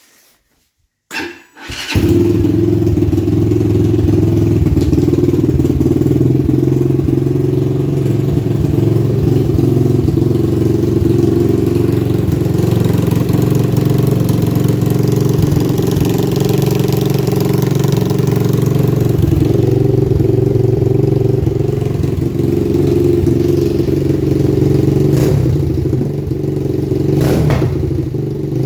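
A 250cc dirt bike engine, swapped into a three-wheeler, catching about two seconds in and then running steadily. It has not yet been tuned.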